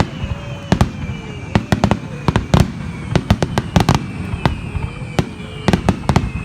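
Aerial fireworks shells bursting in rapid volleys: sharp bangs in quick clusters of two to four, repeating irregularly throughout.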